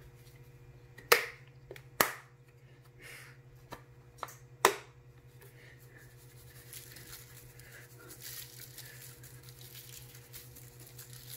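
A few sharp knocks, the loudest about one, two and nearly five seconds in, then a hand-held pepper grinder grinding over a tray of sliced zucchini and broccoli, a fine gritty crackle from about six seconds in. A steady low hum runs underneath.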